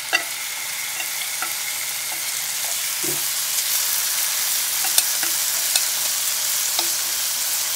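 Soy-marinated beef brisket sizzling as it hits hot sesame oil in a frying pan: a steady hiss that grows a little louder as more meat goes in. A few light clicks sound as the meat is scraped from a metal bowl with chopsticks.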